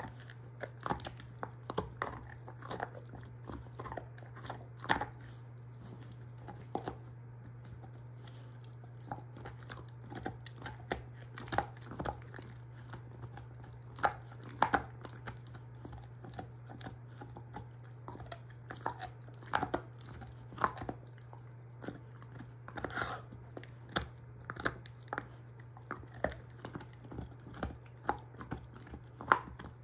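German shorthaired pointer chewing and crunching on a beef soup bone: irregular cracks and crunches at uneven spacing, some much louder than others, over a steady low hum.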